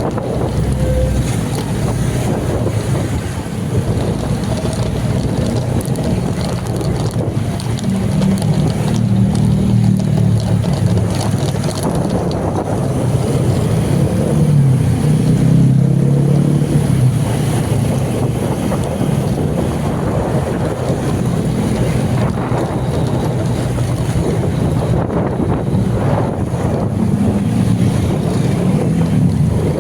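Steady running of a vehicle engine with road noise and wind buffeting the microphone, swelling louder for a few seconds in the middle.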